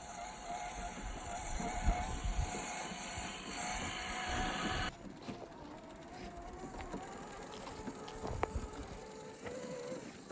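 Whine of a small RC crawler's brushless motor and geartrain (HobbyWing AXE540) wavering in pitch as it drives over rough ground, with scattered thumps and clicks from the chassis and tyres. The sound changes abruptly about five seconds in.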